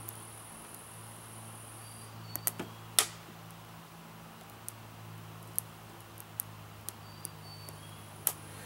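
Small wood fire in a homemade rocket stove crackling, with scattered sharp pops and one loud snap about three seconds in. The fire is freshly lit and still in its smoky start-up stage, before it draws fully.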